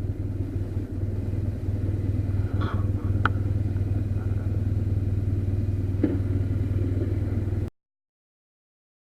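Motorcycle engine running at a steady pace with a low drone, cutting off abruptly about eight seconds in.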